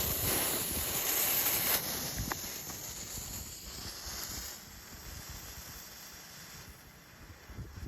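Gushing purple smoke firework hissing as it spews smoke, loud for the first couple of seconds, then settling into a softer, fading hiss.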